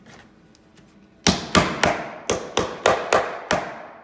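Hammer driving T-nuts into pre-drilled holes in a Western Red Cedar chair seat frame: eight sharp strikes in a little over two seconds, starting about a second in.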